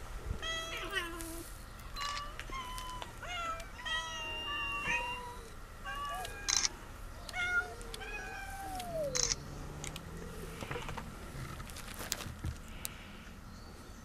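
A large crowd of free-roaming domestic cats meowing, many short overlapping meows from different cats, with one longer falling meow about eight seconds in. A few sharp clicks are heard, and the meowing thins out over the last few seconds.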